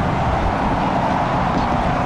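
Jet airliner engine noise, loud and steady.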